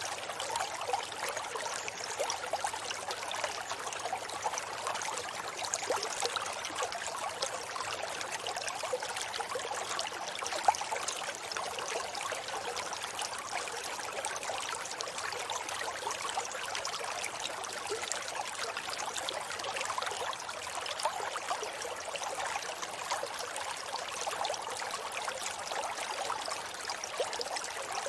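A forest river runs steadily over shallow stones, with an even babbling and trickling that sits in the middle and high range and has little low rumble. One brief, louder click or splash comes about ten seconds in.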